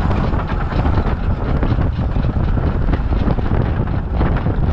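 15-inch narrow gauge 2-8-2 steam locomotive running along the line, with steady wind buffeting the microphone.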